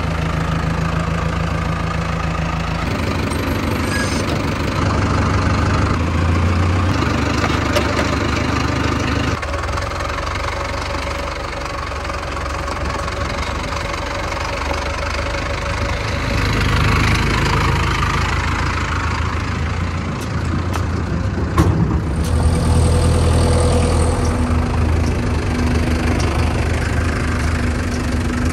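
Mahindra Arjun Novo 605 DI tractor's diesel engine idling, with its low note shifting several times through the stretch.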